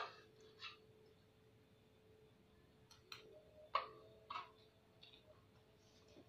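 Near silence in a small room, with a faint steady hum and a few scattered light clicks and taps, the clearest about three and a half to four and a half seconds in.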